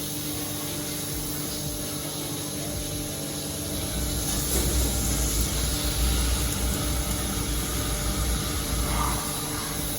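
Doosan 6700L CNC vertical machining centre drilling a 17.5 mm hole with a Sandvik 870 drill, coolant pumped through the drill: a steady spray hiss over the spindle's hum, a little louder from about four seconds in.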